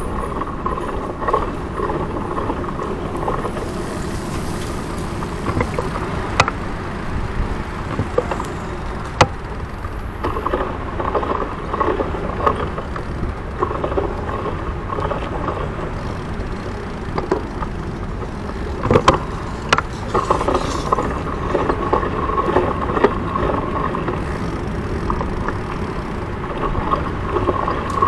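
A Citi Bike rolling over city pavement: a steady rumble and rattle from the bike and road, with a few sharp knocks from bumps.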